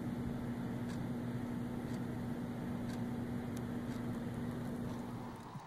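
A steady low electrical hum, like a motor or appliance, with a few faint sharp clicks; the hum dies away near the end.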